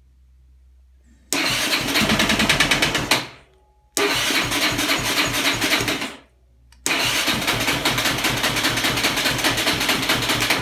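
Yamaha Raptor 660 single-cylinder engine turned over on its electric starter in three attempts of about two, two and four seconds, cranking with an even pulse but never firing: a no-start, even though the engine has spark and fuel.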